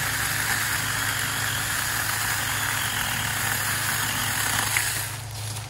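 Saker 4-inch cordless electric mini chainsaw running steadily as its chain cuts through a gum sapling trunk about 4 inches thick. There is a click near the end, and the saw's sound drops away about five seconds in.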